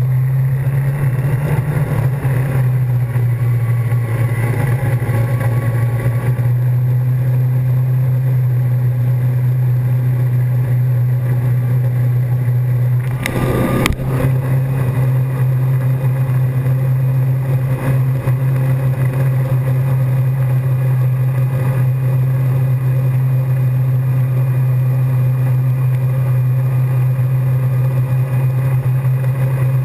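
Steady low drone of a towing wake boat's engine under the rush of water, with a brief rubbing knock about halfway through.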